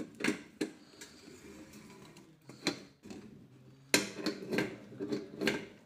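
Irregular metallic clicks and light knocks as a nut is worked onto a bolt by hand at the central hub of a metal chandelier frame, with a busier run of clicks in the last two seconds.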